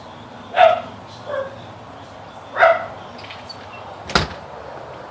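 Dog barking: two short, sharp barks about two seconds apart with a softer one between them, then a single sharp click near the end.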